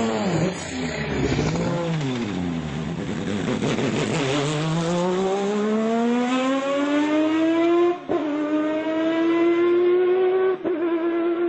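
Rotary-engined Mazda race car at full throttle: after a few seconds of revs rising and falling, the high-pitched engine note climbs steadily as it accelerates away, broken by two quick upshifts near the end.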